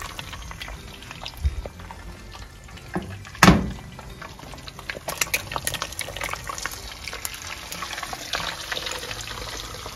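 Eggs frying in hot oil in a pan: steady sizzling with scattered spits and crackles, and one sharper knock about three and a half seconds in.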